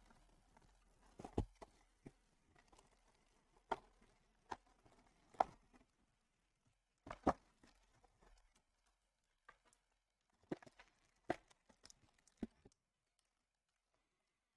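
Trading-card box and its foil packs being handled and unpacked: about a dozen short, faint taps and clicks at uneven intervals, with a light rustle of plastic wrapping.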